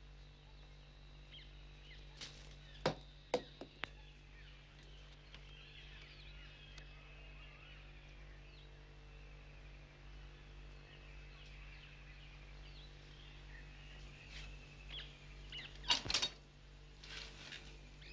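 Faint bird chirping over a steady low electrical hum, with a few sharp clicks about three seconds in and a short burst of clatter near the end.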